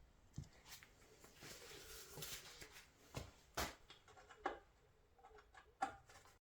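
Faint handling noises: scattered light clicks and knocks with some rustling, the loudest knocks about three and a half seconds in and near the end.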